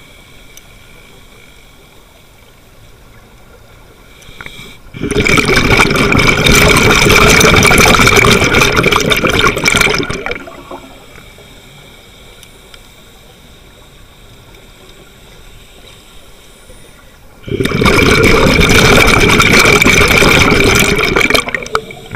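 A scuba diver's exhaled breath bubbling out of the regulator right beside the mask-mounted camera, heard underwater. It comes as two long rushing bursts of bubbles, each about five seconds, some twelve seconds apart, with quiet stretches between.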